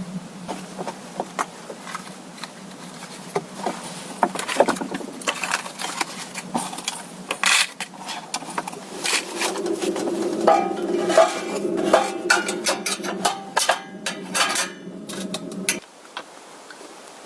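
Irregular clicks, knocks and clatter of objects being handled, over a steady low hum; the knocks come thickest toward the end, and the hum cuts off suddenly shortly before it.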